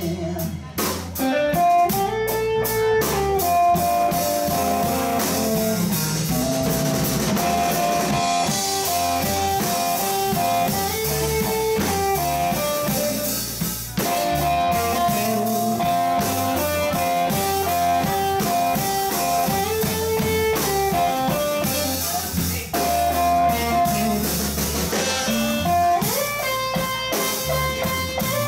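Live blues band in an instrumental break: an electric guitar plays single-note lead lines over bass guitar and a drum kit.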